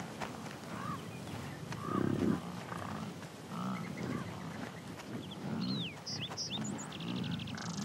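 American bison grunting repeatedly, low calls about once a second, the loudest about two seconds in, with songbirds singing over them.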